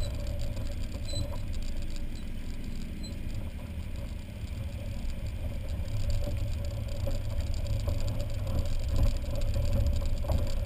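Can-Am Spyder three-wheeled roadster engines running at low speed while rolling, a steady low rumble with a constant hum over it.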